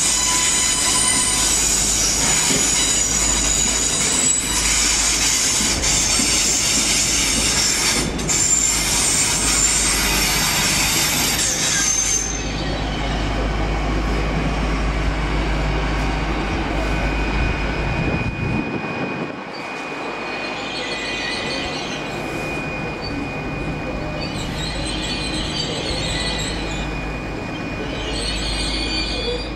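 Passenger train moving slowly through the station, its wheels squealing on the rails in several high steady tones over a low rumble. The squeal dies down about twelve seconds in and comes back in short spells near the end.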